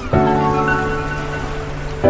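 Background music of slow, held chords, with a new chord coming in just after the start.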